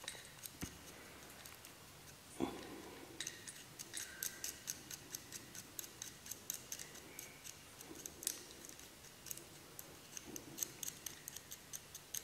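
Faint, irregular light clicks and ticks, several a second, from a Zhiyun Weebill S gimbal's camera quick-release plate being handled and worked in the hands.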